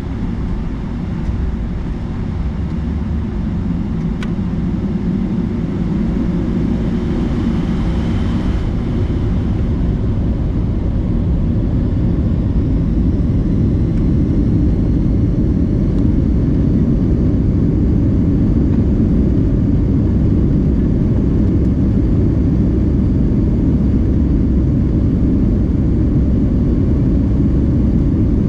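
Boeing 757-200 jet engines and a low rumble, growing steadily louder during takeoff. A faint higher tone is heard briefly a few seconds in.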